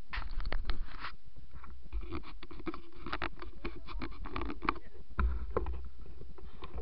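Wind rumbling on the microphone, with scattered clicks, scrapes and rustles of handling. The rumble grows stronger about five seconds in.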